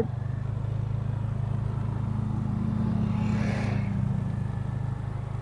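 Motorcycle engine running at a steady low hum while riding, with a brief rushing noise about three seconds in.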